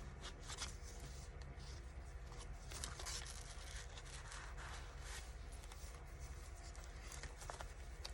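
Paper pages of a handmade junk journal rustling and scraping softly as they are turned and handled, in many small irregular rustles over a steady low hum.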